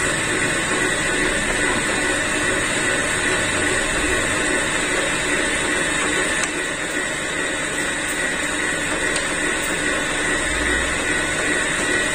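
Electric stand mixer running steadily while it mixes brownie batter, its motor giving a constant whine.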